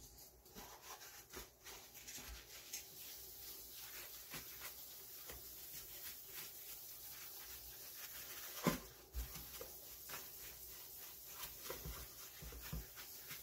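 Faint rubbing of a paper towel wiped by a gloved hand across a metal 3D-printer bed plate, wiping off isopropyl alcohol to clean it. There is one louder knock about nine seconds in.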